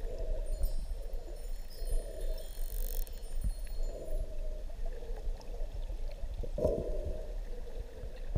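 Underwater water noise around a swimming camera: swishing that comes about once a second over a low rumble, with a stronger swish near the end.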